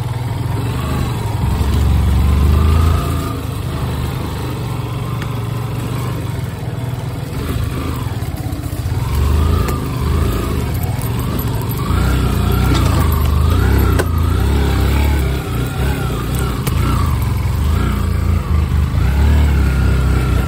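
Yamaha FZ's single-cylinder engine running loudly in low gear on a rocky dirt trail, its pitch rising and falling as the throttle is worked.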